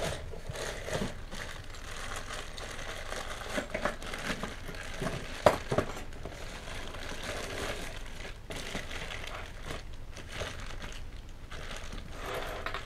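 Clear plastic bags of Meccano parts crinkling as they are handled and spread out on a table, with scattered clicks and one sharp knock near the middle.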